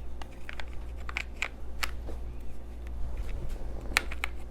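Small eyeshadow pans being pressed back into a Naked 3 eyeshadow palette, a string of light, irregular clicks and snaps, the loudest about four seconds in.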